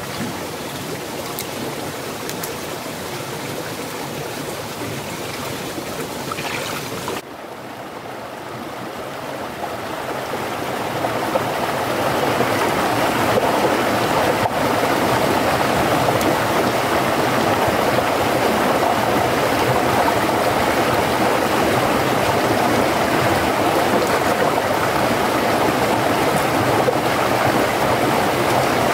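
Small shallow stream running over rocks, a steady rush of water. It dips suddenly about seven seconds in, then grows louder and stays steady.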